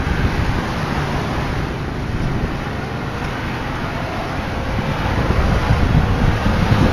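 Highway traffic passing below: steady tyre and engine noise of cars, growing louder near the end as a heavy cargo truck approaches.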